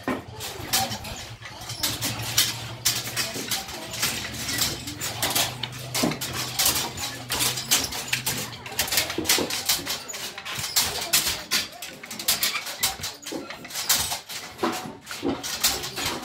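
Rapid, irregular wooden clacking and knocking of kente narrow-strip hand looms being worked by several weavers, several clacks a second.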